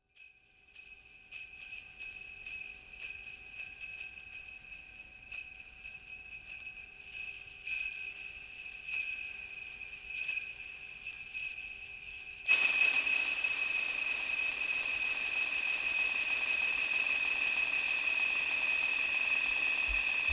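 Sleigh bells jingling in uneven shakes, processed through effects. About twelve seconds in they swell suddenly into a louder, steady ringing wash, the bells drenched in reverb.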